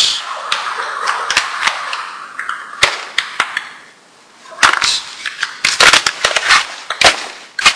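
Flour pouring from a crinkly paper bag into a plastic mixing bowl, a hiss laced with sharp paper crackles that fades after about two and a half seconds. From about four and a half seconds in, the paper bag crackles loudly again in a cluster of sharp crinkles as it is handled.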